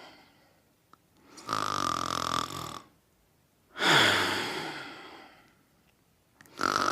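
Someone asleep and snoring in slow breaths. A buzzing snore comes about a second and a half in and lasts just over a second. A louder breath follows at about four seconds and fades away over two seconds, and the next snore starts at the very end.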